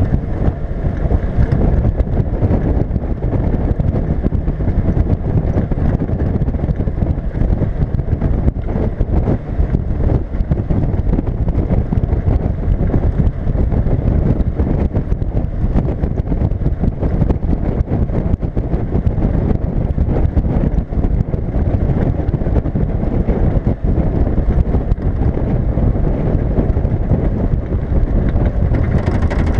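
Wind buffeting the microphone of a bonnet-mounted camera, a dense, steady rumble. Under it is the running engine and road noise of a 1979 Land Rover Series 3 109" driving on the road.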